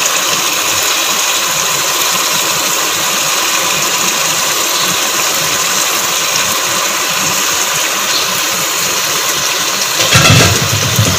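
Chicken korma with freshly added yogurt and cream sizzling steadily in the pot as it is stirred, an even hiss with faint crackle. About ten seconds in, a brief louder low sound cuts in.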